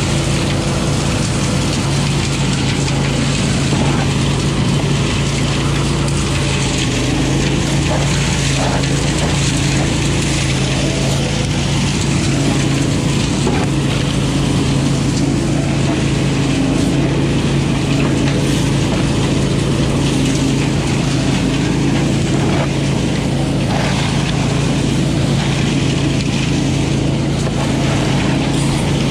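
A 20 hp Billy Goat leaf vacuum running steadily. Its engine makes a constant drone, over the rush of air as leaves are drawn into its intake hose.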